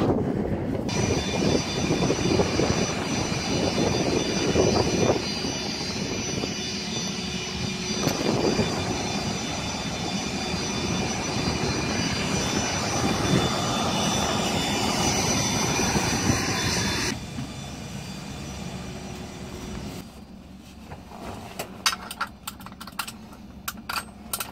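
Turbine aircraft engine running steadily nearby: a constant high whine over a rushing rumble. About seventeen seconds in it cuts off abruptly to a much quieter stretch with small sharp clicks and handling knocks.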